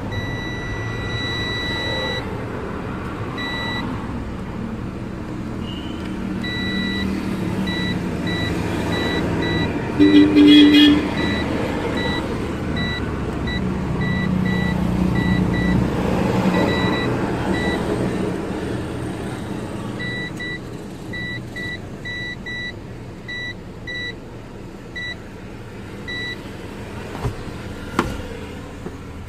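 Digital multimeter's continuity buzzer beeping in short, irregular bursts as the probes touch the fuse legs, a long beep at the start and then many quick ones, over a steady hum of vehicle noise. A louder low tone sounds for about a second partway through.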